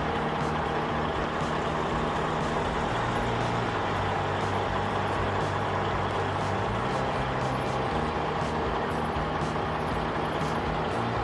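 Heavy truck's diesel engine running steadily, its pitch lifting slightly about three seconds in and settling back near the end.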